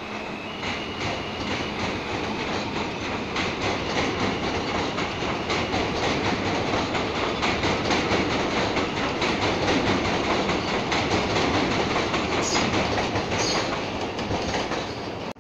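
New York City subway trains on an elevated steel line: steady clickety-clack of wheels over the rail joints as one train leaves on the far track, and the clatter grows louder as another train approaches on the near track.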